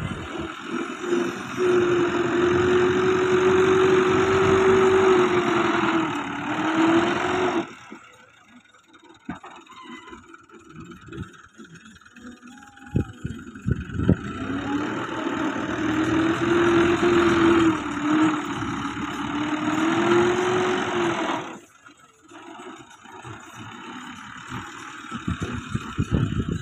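Fiat 640 tractor's diesel engine working under load while the front blade pushes soil, with a steady whine that dips and recovers in pitch. About eight seconds in it drops back to a much quieter run, then works hard again for about seven seconds from around fourteen seconds before easing off once more.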